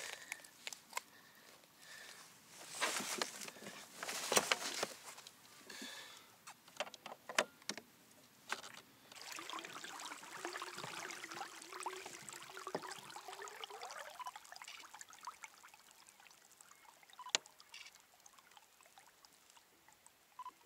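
Water splashing and trickling around a kayak, with scattered sharp clicks and knocks from handling on board; the splashing swells for a few seconds near the middle and then fades.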